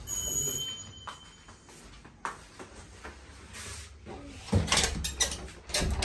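Handling noise as a phone camera is carried through the house, with a high steady tone for about the first second and a half. Near the end comes a run of knocks and clatter from a door being opened.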